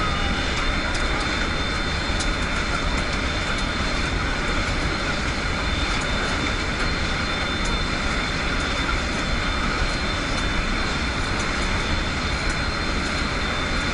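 Steady loud engine drone and rushing air inside a military transport aircraft's cargo hold with the rear ramp open in flight, with a thin steady high whine over it.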